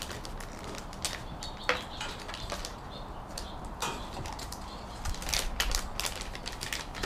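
A plastic soft-bait bag being torn and worked open by hand, giving a string of irregular crinkles and sharp clicks.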